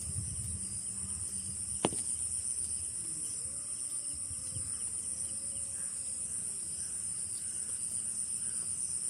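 Steady, high-pitched chirring of night insects throughout. A faint wavering cry rises and falls in the middle, and there is a single sharp click about two seconds in.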